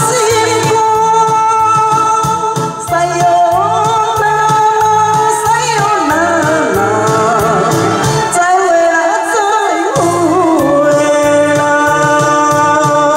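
A woman singing into a handheld microphone over backing music with a steady beat.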